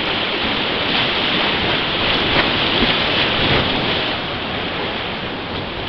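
Whitewater rapids of a river rushing and churning, a steady loud wash of moving water with a few small splashes close by.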